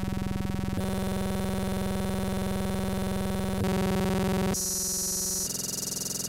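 Background synthesizer music: held chords that shift to new chords about a second in and several more times near the end.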